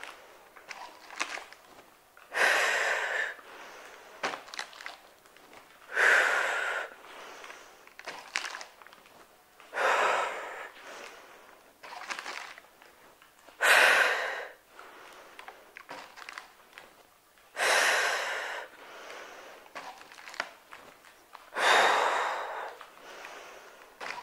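A woman's forceful breaths out, six of them about four seconds apart and each lasting about a second, the exertion breathing of someone doing stiff-legged deadlift reps with a water-bottle crate. Fainter small knocks and shuffles come between the breaths.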